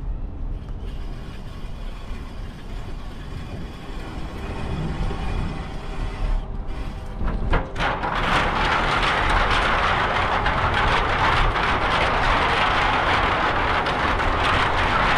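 Riding noise of a bicycle in motion, wind and tyres heard on the microphone: a low rumble at first, joined about eight seconds in by a loud, steady hiss that holds on.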